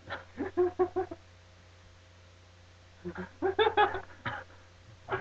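Short, choppy bursts of a person's voice in two clusters, one about a second in and another from about three to four seconds.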